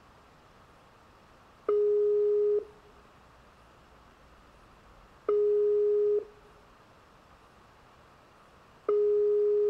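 Skype outgoing-call ringing tone from the computer: a steady tone a little under a second long, heard three times about three and a half seconds apart, while the call waits to be answered.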